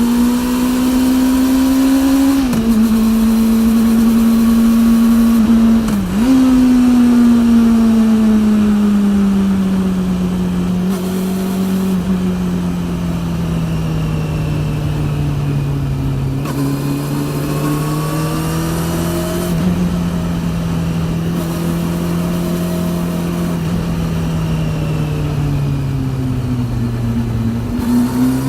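Honda CB400 inline-four with a TSR E02 slip-on exhaust, heard while riding: the engine revs climb with two quick breaks for upshifts in the first six seconds, then the revs sink slowly for about twenty seconds before climbing again at the end. The drive chain is loud enough to come through the recording.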